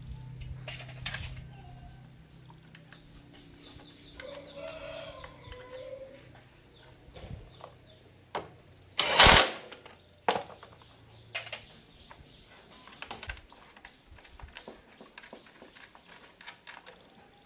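Cordless impact driver run in one short loud burst on the electric bike's rear wheel hub nut, about nine seconds in. Scattered clicks and taps of metal parts being handled sound around it.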